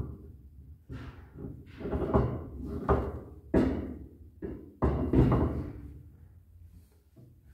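Irregular heavy clunks and knocks as a Ford 9-inch differential carrier is shoved and shifted against the axle housing while being fitted. The carrier is not yet seating flush. The knocks come loosely spaced and die away in the last couple of seconds.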